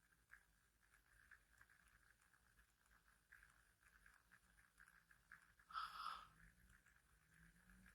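Near silence: faint room tone with a thin steady hum, and one brief soft noise about six seconds in.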